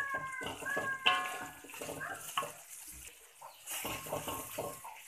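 Wooden spatula stirring and scraping thick curry paste around a wok, with scattered light knocks against the pan. A high wavering call is heard in the first half-second.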